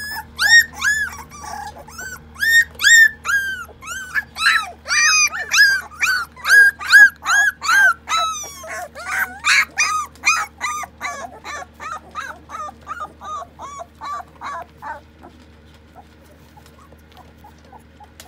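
Three-week-old mini goldendoodle puppies crying in a wire crate: a quick run of high-pitched whines and yips, each rising and falling in pitch, about two or three a second, dying away about fifteen seconds in. The breeder takes the crying for protest at the start of crate training.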